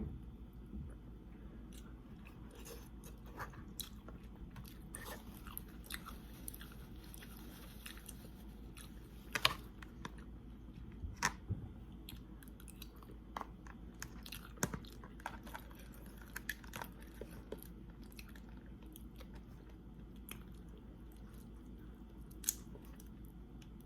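Close-miked mukbang eating of a seafood boil: chewing and biting with scattered wet smacks and sharp clicks, the loudest about nine and a half, eleven and fifteen seconds in and again near the end, over a steady low hum.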